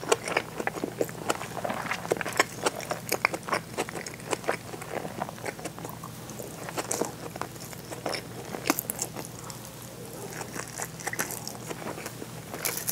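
Close-miked chewing of seared bonito and rice: a steady run of short mouth clicks and smacks from chewing, easing off for a couple of seconds about nine seconds in, then picking up again near the end.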